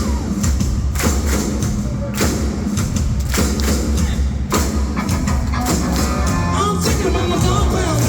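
Loud live rock band playing, with heavy drum hits over bass and guitar.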